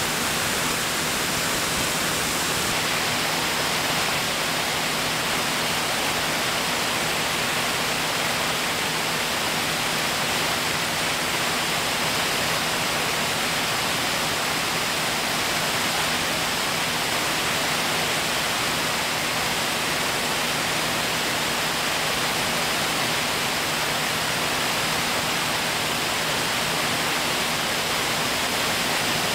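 Aircraft cabin noise in flight: a steady rushing of airflow and engines, with a faint low steady hum beneath it.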